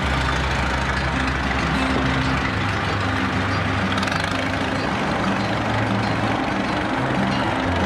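Background music with a deep bass line that steps from note to note.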